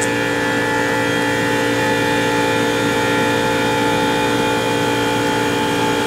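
Water source heat pump running in cooling mode, a steady hum with several held tones. The water valve is throttled, so the unit is running at very high head pressure, close to 400 psi.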